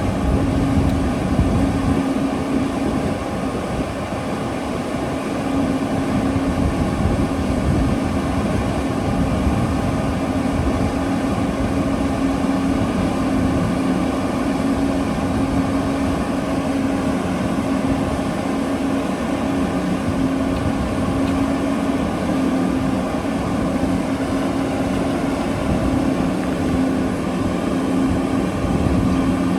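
Heavy mining machinery running steadily: large diesel engines giving a constant low drone.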